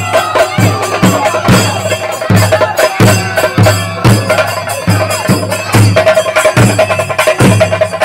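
Loud percussion music: a deep drum struck steadily about twice a second under dense jingling and clicking strokes, with a held tone that comes and goes.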